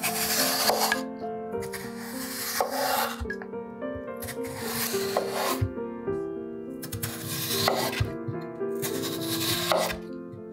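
A chef's knife slicing through a raw peeled potato: about five slow strokes, each a rasping scrape through the flesh, some ending in a sharp tap on the wooden cutting board. Soft background music with held notes plays underneath.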